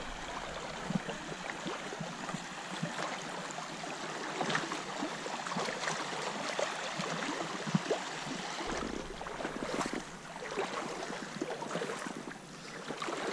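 Shallow creek water running, with scattered small knocks and splashes through it.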